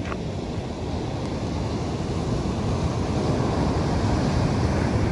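Wind blowing across the microphone over the steady wash of ocean surf.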